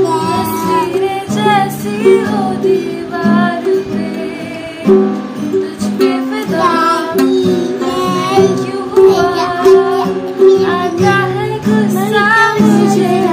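A girl singing while strumming chords on an acoustic guitar.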